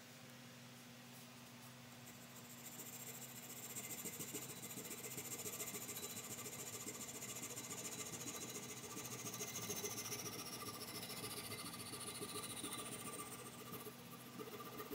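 Coping saw cutting through the wooden handle end and wedge that stick out of the top of a steel hammer head, trimming them flush. The quick back-and-forth strokes make a rasping hiss that starts about two seconds in and stops shortly before the end.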